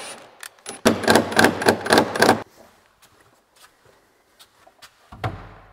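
Carpentry work noises: a quick run of sharp clicks and knocks lasting under two seconds, then a few faint scattered taps.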